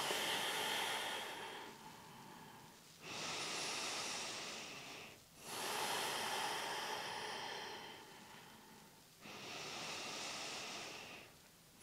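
A woman's slow, deep breathing, heard as soft rushes of air in and out. There are about four long breath sounds of two to three seconds each, with brief pauses between them.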